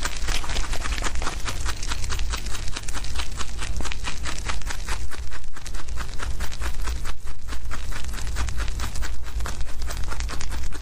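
Young domestic rabbits chewing fresh grass close to the microphone: a rapid, steady run of crisp crunching clicks, over a steady low hum.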